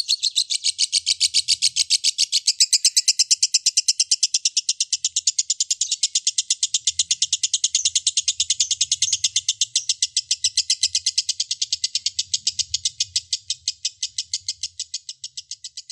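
Lovebird ngekek panjang: one long, unbroken, rapid chattering trill of about ten shrill notes a second, fading near the end.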